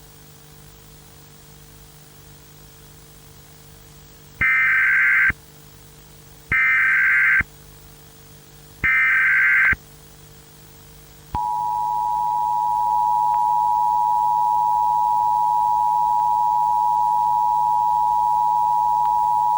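Emergency Alert System tones: three short warbling bursts of the SAME data header, each about a second long and about a second apart, then the steady two-tone EAS attention signal, which starts about halfway through and holds for about eight seconds before cutting off. A faint steady hum lies underneath.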